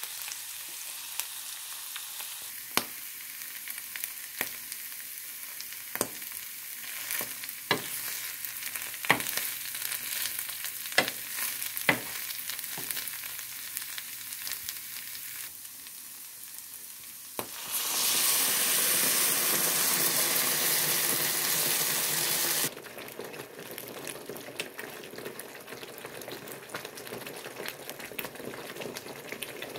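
Bamboo shoots and baby corn sizzling in a nonstick frying pan while a metal spoon stirs them, the spoon clicking sharply against the pan every second or two. Past the middle a louder, even hiss lasts about five seconds, then the sizzling goes on more quietly.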